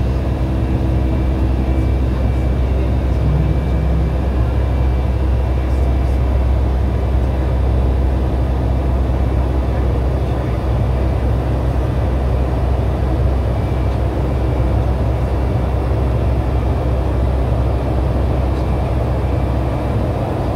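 Boeing 757 cabin noise during the climb after takeoff: a steady low engine drone with a rush of air and a few faint steady tones above it.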